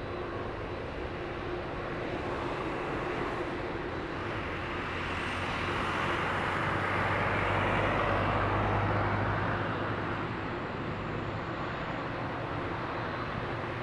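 Boeing 787's turbofan engines running at taxi power: a steady rushing hum with a low drone underneath. It swells to a peak about halfway through, then eases again as the jet taxis past.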